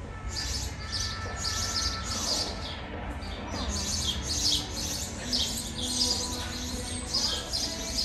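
Small birds chirping in quick, high-pitched clusters, about two a second with a brief lull near the middle, under a store's metal roof, over a low steady hum.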